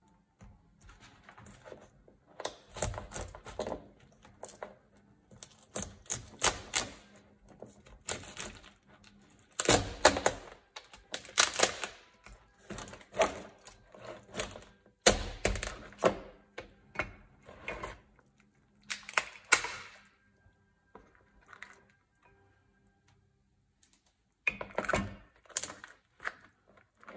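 Irregular runs of sharp knocks and clicks from kitchen work, some with a dull thump, separated by short pauses. A faint steady hum lies underneath.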